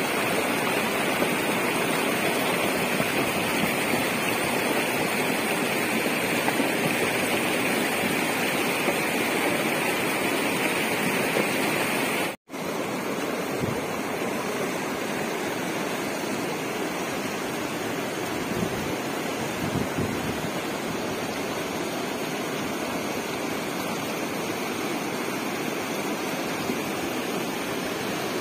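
Muddy flash-flood torrent of a mountain river rushing and churning: a loud, steady rush of water. It cuts out for a moment about halfway through and comes back a little quieter.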